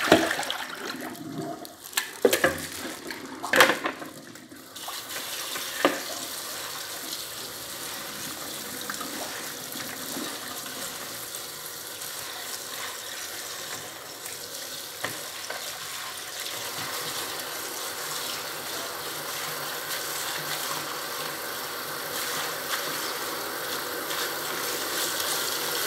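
A kitchen tap running steadily onto leafy greens in a salad spinner, the water splashing as a hand rinses the leaves. In the first few seconds there are several sharp knocks as the plastic bowls are handled.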